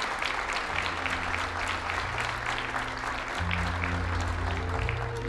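Audience applauding, the clapping thinning out near the end, over background music with slow, held low notes.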